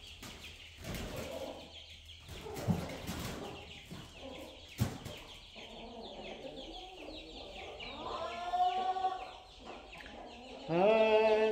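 Domestic hens clucking, with a louder drawn-out call about eight seconds in and a few short knocks.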